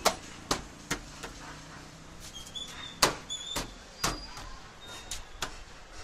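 Hard plastic car door trim panel being pressed and knocked into place on the steel door, giving a series of about seven sharp knocks and clicks spread unevenly, the loudest about three seconds in.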